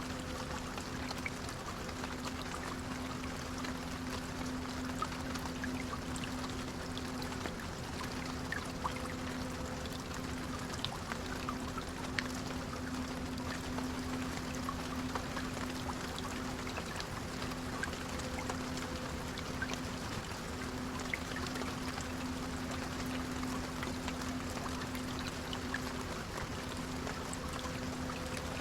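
Rain hissing steadily on an intercity coach, with scattered faint drop taps, over the low, steady drone of the coach's engine, which dips briefly every few seconds.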